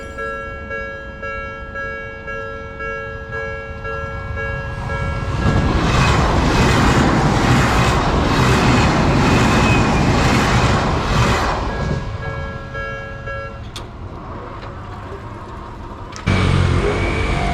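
Japanese level-crossing warning bell ringing steadily while an Odakyu Line electric train passes through. For about six seconds the train is loudest, its wheels clacking in an even rhythm over the rail joints, and then the bell is heard on its own again. Near the end the sound cuts suddenly to another train's low rumble.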